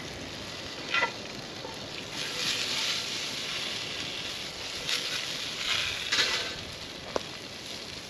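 Diced potatoes sizzling in a skillet over a campfire, stirred with a spatula; a few short knocks and scrapes of the spatula against the pan stand out from the steady sizzle.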